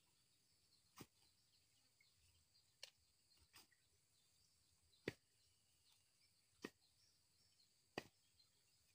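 Coconuts knocking against one another as they are dropped one at a time into a sack: six sharp knocks at irregular intervals, over a faint steady high-pitched background.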